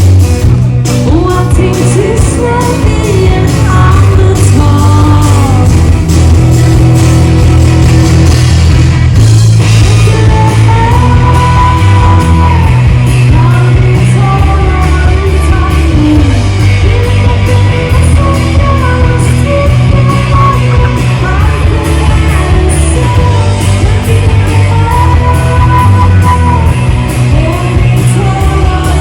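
Loud rock music with a singer over guitar and a heavy, continuous bass line.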